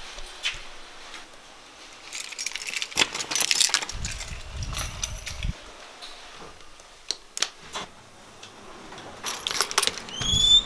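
A bunch of keys jangling and clinking in a hand, in clusters about two seconds in and again near the end, with scattered clicks and knocks, a low rumble in between and a short rising tone near the end.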